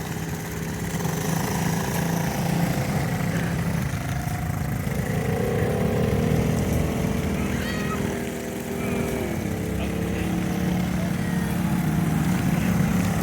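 Small engines of bumper boats running with a steady hum, one engine note rising higher for a few seconds in the middle before dropping away.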